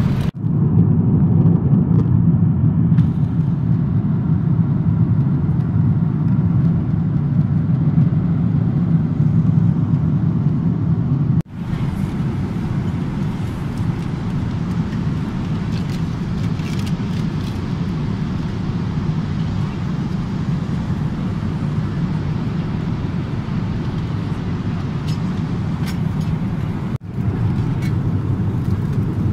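Steady low cabin drone of a Boeing 777-300 airliner in flight, engines and air rushing past the fuselage. It cuts out briefly twice.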